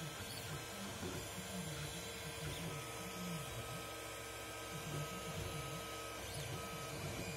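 Alfawise U30 3D printer running, its stepper motors whining in short moves that keep changing pitch, over a steady hum.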